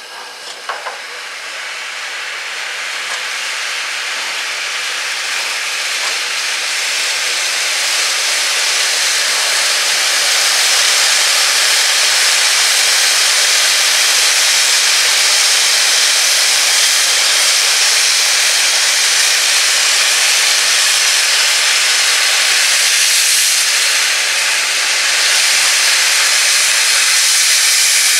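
Class 01 steam locomotive venting steam at its cylinders, a loud continuous hiss typical of open cylinder drain cocks. It swells over the first ten seconds or so, then holds steady, easing briefly about three-quarters of the way through.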